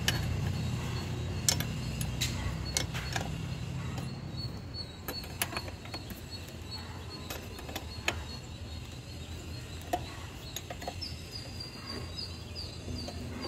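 A wrench tightening the bolts on an aluminium throttle body: scattered, uneven metallic clicks and taps of the tool on the fittings, over a low hum that fades after the first few seconds.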